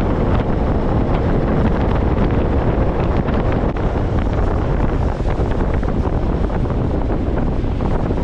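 Loud wind buffeting the microphone over water rushing past a moving bass boat, a steady roar with constant crackling gusts.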